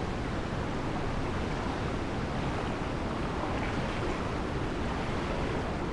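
Steady rush of fast river water, with whitewater pouring over a concrete spillway upstream.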